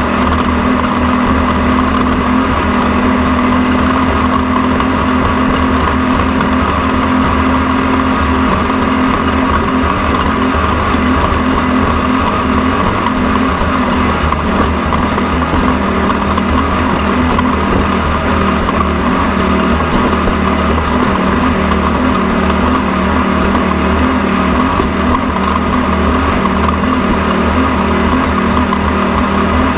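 An engine running steadily at a constant speed, with an even hum and a strong steady whine.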